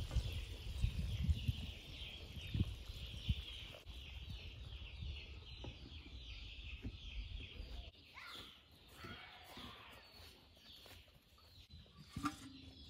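Many small birds chirping in a dense, continuous chatter that thins to scattered chirps about eight seconds in. A few low thumps sound in the first few seconds.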